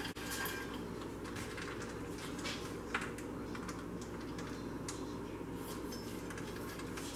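Faint clinks and light scrapes of peanuts being tipped from a small metal bowl over a pan of caramel, a few short clicks, over a steady low background hum.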